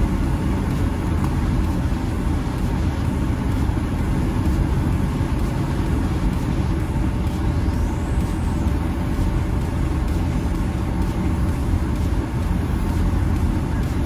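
Steady low rumble of a car's engine and road noise, heard from inside the cabin while creeping along in slow traffic.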